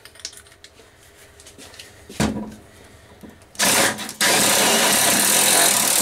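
Ridgid cordless drill/driver running against a bolt at the centre of an evaporator fan motor mount: a short burst about three and a half seconds in, then after a brief gap a longer steady run. A single knock comes about two seconds in.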